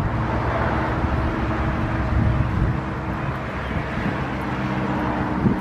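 Steady low hum of a running engine, with a low outdoor rumble underneath.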